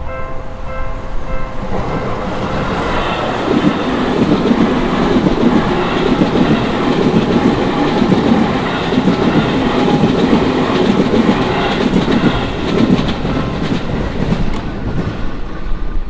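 Japanese level-crossing warning bell ringing in quick repeated electronic tones, soon drowned by a Seibu Ikebukuro Line electric commuter train passing over the crossing, its wheels clattering over the rail joints. The train noise eases near the end as the last car clears.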